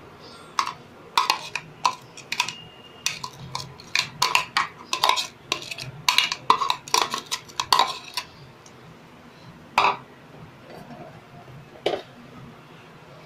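A steel spoon scraping and tapping against glass bowls as a chopped onion mix is knocked out of one bowl into another: a quick, irregular run of clinks for the first eight seconds or so, then two single knocks near the end.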